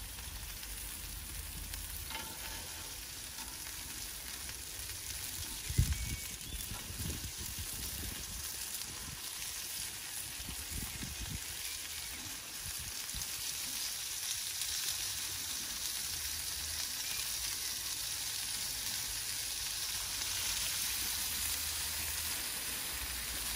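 Sausages and burgers sizzling on a gas barbecue grill: a steady hiss of frying fat, with a single thump about six seconds in.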